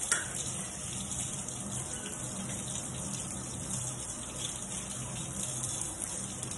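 Water running steadily from a tap while hands are washed under it, with a brief knock right at the start.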